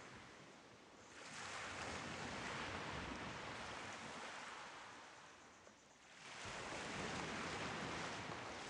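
Small lake waves breaking and washing up a pebble beach. Two surges come in, one about a second in and another about five seconds later, each building quickly and then slowly fading.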